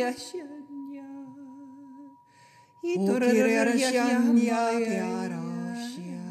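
Meditation music of wordless sung voices with vibrato over a steady high tone. The singing thins to one held low note about half a second in and fades out around two seconds, then a fuller, louder chord of layered voices comes in at about three seconds.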